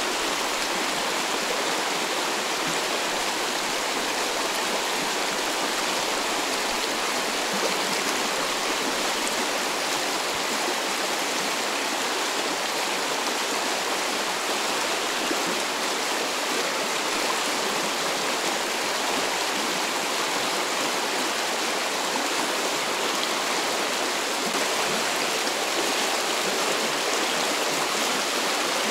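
Mountain river rushing steadily, a fast, strong current.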